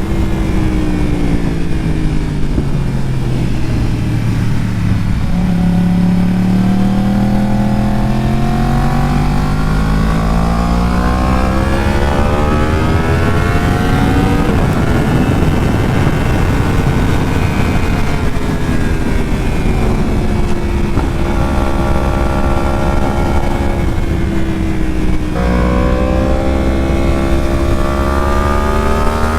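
Yamaha R1's inline-four engine heard onboard, its pitch falling, then climbing steadily, then falling again, with sudden jumps near the end, over steady wind and road noise.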